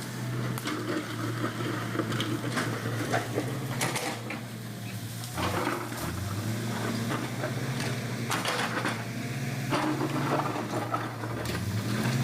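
Bulldozer's diesel engine running under load, its note dipping and recovering a couple of times, with repeated metallic clanks and rattles.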